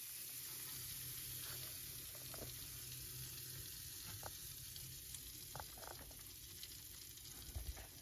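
Melted cheese on tortilla chips sizzling faintly in a running microwave oven, over the oven's low steady hum, with a few small pops and a soft low thump near the end.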